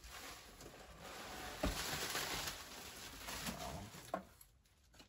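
Plastic bubble-wrap packing and foam rustling and crinkling as hands rummage through a cardboard box, with one sharp knock about one and a half seconds in. The rustling dies away shortly before the end.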